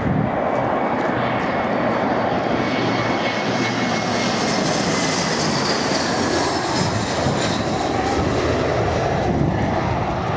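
Airliner passing low overhead on final approach to land, its engines giving a steady rushing noise with a high whine that swells to a peak about halfway through.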